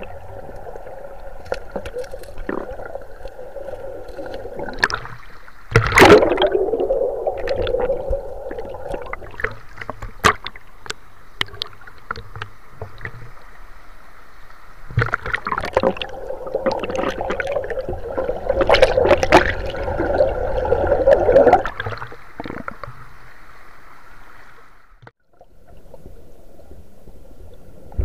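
River water sloshing and gurgling around a spearfisher moving through it, partly heard underwater, with louder splashing about six seconds in and again from about fifteen to twenty-two seconds.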